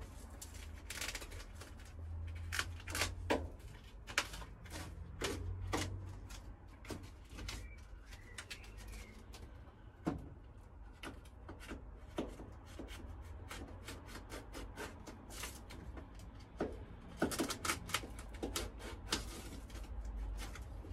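Foil-faced sound-deadening sheet being pressed and smoothed by hand onto a van's bare steel side panel: irregular crinkles, taps and knocks, with a louder cluster of them near the end.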